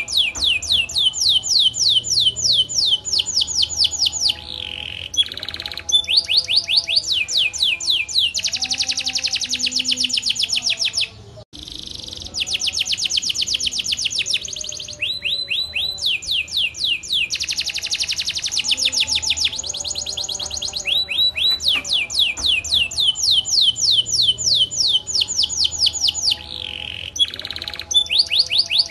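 Domestic canary singing a long, loud song of rapid trills, each a fast run of repeated high downward-sweeping notes, one trill giving way to another, with a brief break about eleven seconds in.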